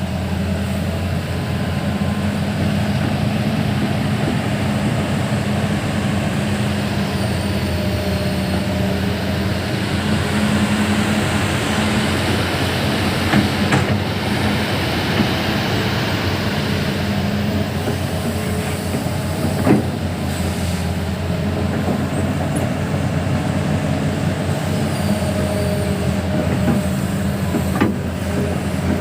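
Hitachi 210 excavator's diesel engine running steadily, with a few short, sharp metallic knocks spread through.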